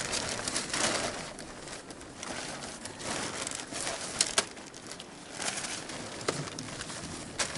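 Nylon fabric of a Quechua pop-up tent rustling and its springy frame hoops scraping as the tent is twisted and folded down, with several sharp clicks in the second half.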